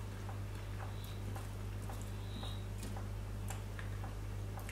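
Faint, regular crunching of someone chewing a crisp deep-fried lentil croquette, small clicks about three a second, over a steady low electrical hum.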